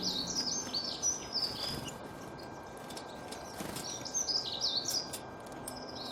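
Songbird singing in phrases of quick, high chirped notes, a second phrase following about three and a half seconds after the first, over a steady background hiss.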